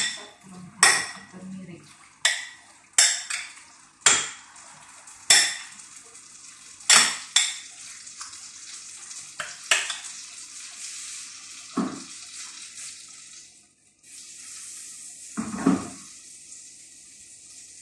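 A spoon clinking against a glass bowl while chicken pieces are mixed in it, a dozen or so sharp ringing clinks over the first ten seconds. After that comes a steady hiss with a couple of duller knocks.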